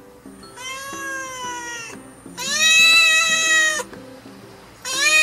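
Domestic cat meowing: three long, drawn-out meows, the second the loudest and the third starting near the end.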